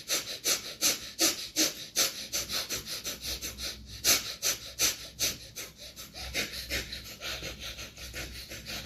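A man breathing rapidly and forcefully through his nose as a nasal breathing exercise, a steady series of sharp breaths at about two to three a second.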